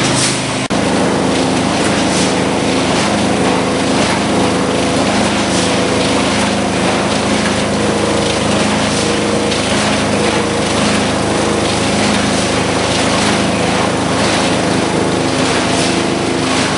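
Industrial thermoforming and extrusion line running: a steady machine hum with several held tones and a regular pulsing hiss over it.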